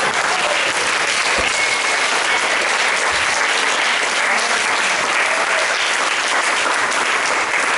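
Crowd applauding: many people clapping steadily.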